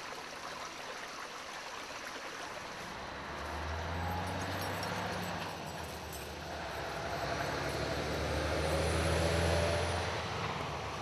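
Low, steady engine hum of a distant motor vehicle, swelling twice and fading between.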